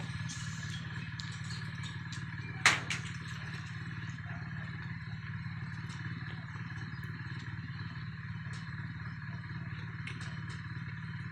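A steady low mechanical hum with one sharp crack about two and a half seconds in.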